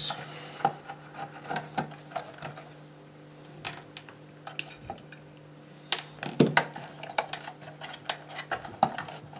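Scattered small clicks and taps of a screwdriver working screws out of a circuit board, the screws set down on the bench and the board and its metal case handled, with the sharpest clicks about six seconds in and near the end. A faint steady low hum runs underneath.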